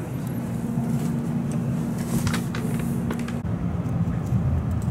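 Steady low rumble inside a Tokaido Shinkansen passenger car, with a steady hum that stops about three and a half seconds in, and a few light clicks.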